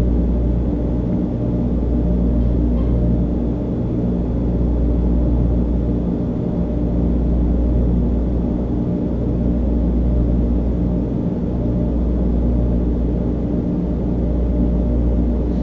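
Loud, steady low bass drone with a hum of several overtones above it, slowly swelling and easing. The resident takes it for a throbbing bass tone machine running in the apartment next door.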